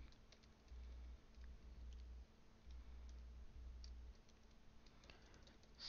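Near silence: room tone with a low hum that comes and goes and a few faint clicks of a computer keyboard.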